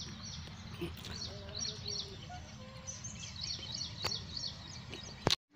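Small birds chirping in many quick, short calls over a steady low rumble of outdoor background noise. A sharp click comes about four seconds in, and another just before the sound cuts out completely for a moment near the end.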